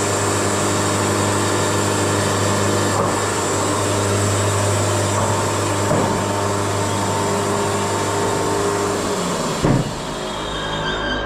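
Wood-Mizer LT70 sawmill running steadily with a constant low hum. Close to the end there is a short bump, and the sound changes abruptly to a different, lower-level running sound.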